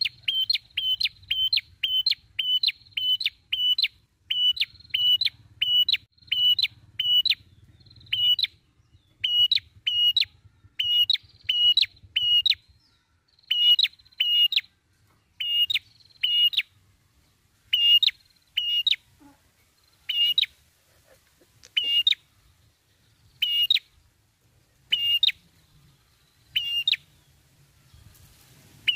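Ashy tailorbird calling: a series of sharp, repeated chipping notes, about two a second at first, slowing in the second half to one every second and a half or so.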